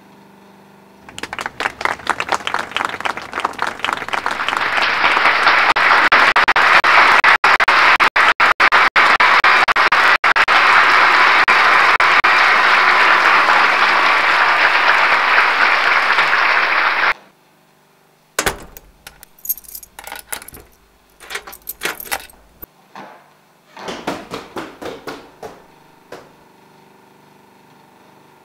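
Audience applause on a film soundtrack played through cinema speakers: scattered clapping swells into dense applause, then cuts off abruptly about two-thirds of the way through. Irregular knocks and clicks follow.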